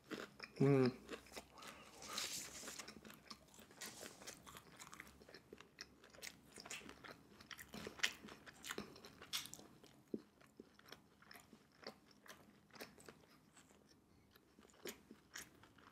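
Close-miked chewing of battered sweet and sour pork and rice: many small irregular mouth clicks, with a brief hum about half a second in, thinning out over the last few seconds.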